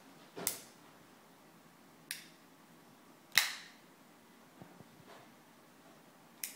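A few sharp plastic clicks as a small child handles and presses a toy phone: three separate clicks a second or so apart, the third the loudest, then a couple of faint ticks.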